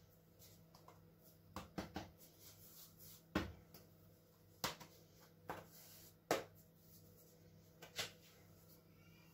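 Faint taps and pats of hands pressing a ball of soft bread dough flat into a round and setting it down on a cloth, about eight scattered taps over a low steady hum.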